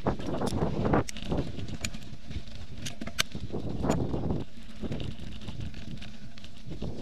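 Bicycle riding over a rough dirt and gravel trail, recorded from a camera on the bike: a steady rumble of tyres and wind on the microphone, with sharp rattles and knocks as the bike jolts over stones.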